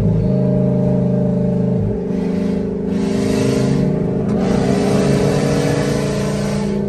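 Engine and road noise heard inside the cab of a Ford U-Haul moving truck as it drives. The engine drones steadily, with its pitch shifting about two seconds in and again later, and a rush of noise in the middle. Those nearby call the truck too loud.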